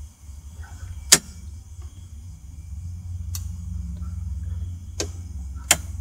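Small van engine idling with a steady low hum that swells a little in the middle, with four sharp clicks over it.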